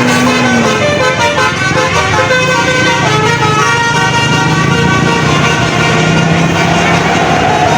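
Bus telolet basuri horn playing a fast melody of short, shifting notes over a steady low hum, ending on a held higher note.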